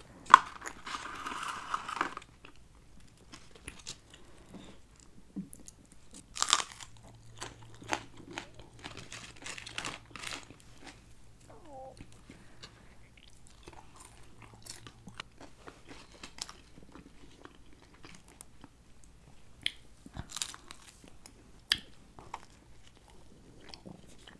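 Close-miked eating: biting and chewing a cheeseburger and fries, with scattered sharp mouth clicks and short rustling bursts.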